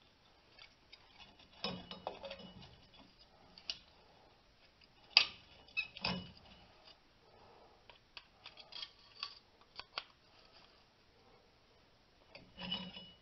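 Scattered metallic clicks, clinks and clanks of a hand tool against steel drum-brake hardware on the backing plate. The sharpest clank comes about five seconds in, with a run of light ticks a few seconds later.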